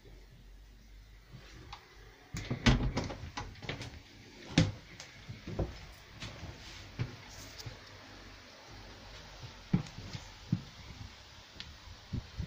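Irregular knocks and clunks of a cabin door being handled and of someone moving about in a small boat interior, loudest from about two to five seconds in.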